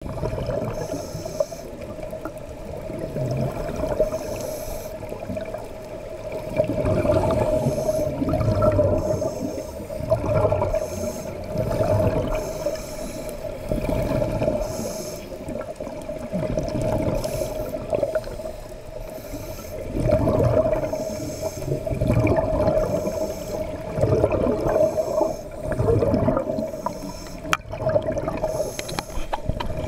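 Scuba breathing heard underwater: a diver's regulator breathing, with exhaled bubbles gurgling up in repeated surges every couple of seconds, over a steady hum.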